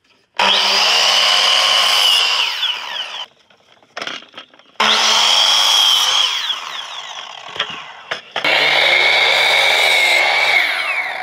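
Electric miter saw cutting wooden boards three times. Each time the motor starts suddenly with a steady whine, the blade runs through the board, and then the blade winds down, with short knocks between the cuts.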